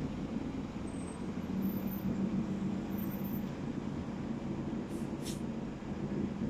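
Steady low background rumble, with two brief high swishes about five seconds in.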